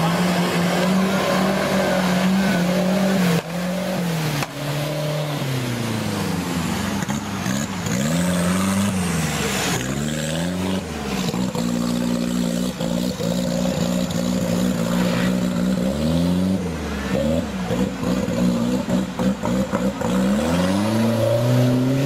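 Off-road 4x4 engines revving hard, their pitch climbing and dropping again and again as the drivers work the throttle through deep water, over a steady rush of splashing river water.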